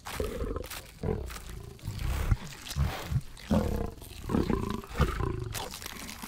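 Growls and grunts of a caveman and a dinosaur tearing into raw meat, with wet ripping and chewing sounds in irregular surges.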